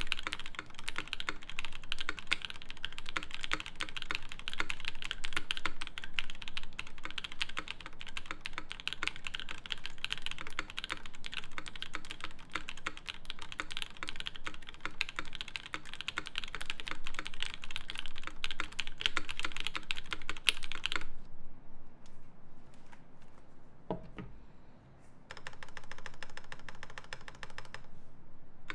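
Kyuu custom mechanical keyboard with lubed Creampaca linear switches in an aluminium plate and GMK keycaps, typed on fast and continuously in a dense clatter of keystrokes. The typing breaks off about three-quarters of the way through, and a single low thump follows. A quieter, different clatter starts near the end.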